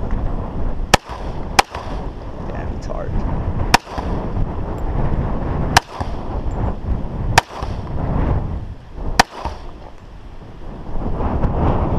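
Six single gunshots at an uneven pace, one to two seconds apart, with the first two close together.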